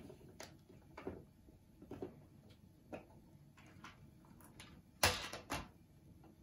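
Small plastic clicks and taps as a Polly Pocket compact case is handled and opened, with a pair of louder clicks about five seconds in.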